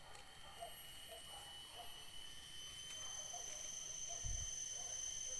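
Forest ambience: a steady high-pitched drone at several pitches, with faint short chirps and a soft low thump about four seconds in.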